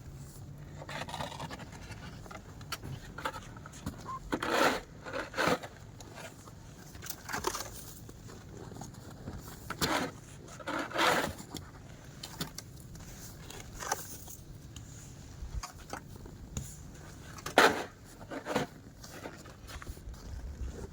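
Snow shovel scraping and pushing snow in a series of separate strokes, irregularly spaced every one to three seconds.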